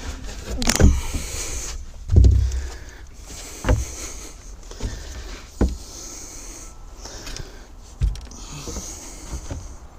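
Marine plywood floor board being handled and set into place over the boat's fuel tank bay: a series of separate wooden knocks and thumps, the loudest about two seconds in, with a few lighter bumps after.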